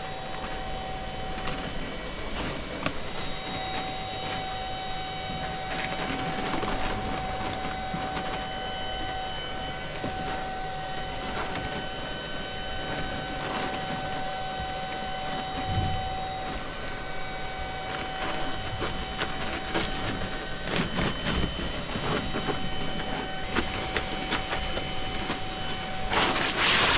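Vacuum cleaner running steadily with a constant whine, sucking up a paper wasp nest. Scattered clicks and rattles grow louder near the end.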